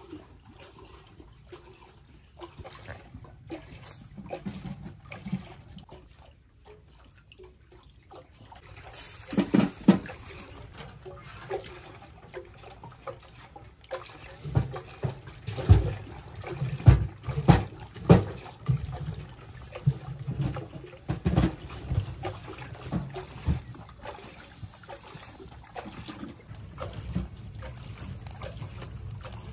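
Sharp knocks and clatter as firewood and the metal door of a small sheet-metal wood-burning stove are handled, thickest about halfway through. Under it runs a steady watery patter of rain.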